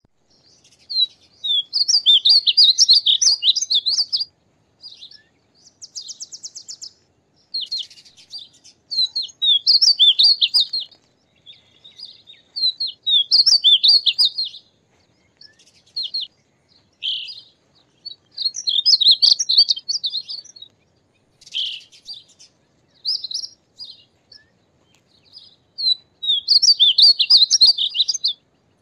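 Male painted bunting singing: high, quick warbled song phrases of two to three seconds each, repeated every few seconds, with shorter single notes and a brief buzzy trill in the gaps.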